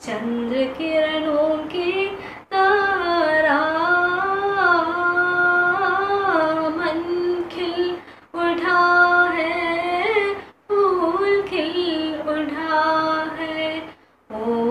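A girl singing a Hindi song unaccompanied, with long held notes that bend up and down, in four phrases separated by short breaths.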